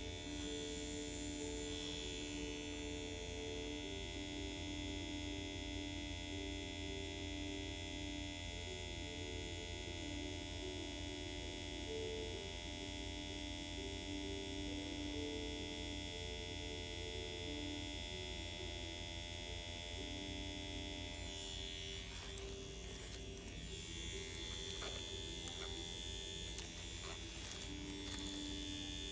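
Steady electric hum with soft background music. Light clicks and handling noises join in about three-quarters of the way through.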